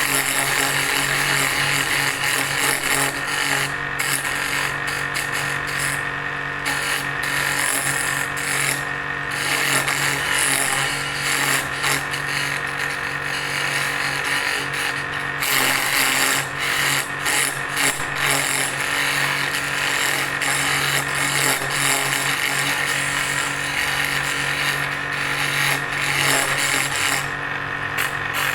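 Bench drill press running steadily as a makeshift lathe, spinning a wooden chisel handle while a hand tool scrapes and shapes the turning wood. The motor's steady hum sits under a rough, uneven scraping that comes and goes.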